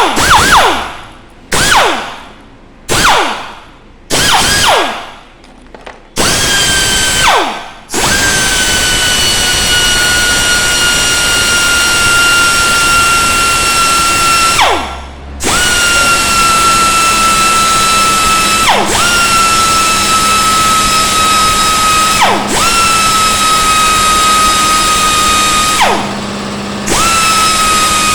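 Air die grinder whining at high speed as it cleans a spark plug. It starts with four short blips, each dropping in pitch as it spins down. Then it runs steadily, with a brief stop and a few short dips in pitch as the tool is loaded.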